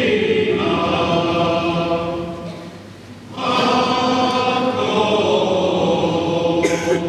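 Male-voice choir singing held notes in close harmony. The singing fades between phrases about three seconds in, then comes back in at full strength.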